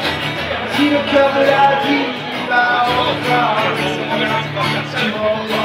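Acoustic guitar strummed steadily with a man singing over it into a microphone, played live.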